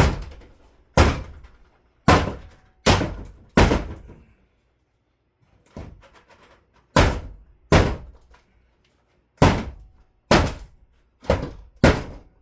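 A run of heavy thuds and knocks, roughly one a second at an uneven pace, as the closet's wall panelling and framing are struck to knock them loose.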